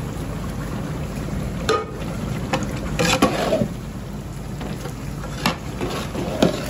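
Hot oil tempering of onions and green chillies sizzling as it hits mashed potatoes in a large stockpot. A long metal spoon stirs it, knocking against the pot a few times, over a steady low rumble.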